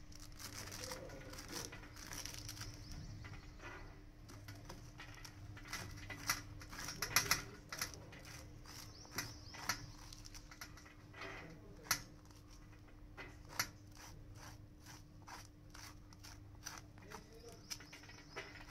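A steel spoon scraping the seeds out of a raw papaya half and dropping them onto a stainless steel tray: irregular small clicks and scrapes, over a faint steady hum.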